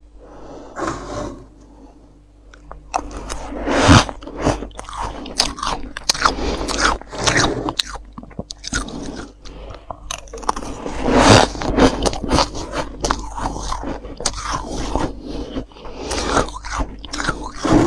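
Freezer frost being bitten and chewed close to the mouth: a dense, irregular run of loud crunches, quieter for the first couple of seconds.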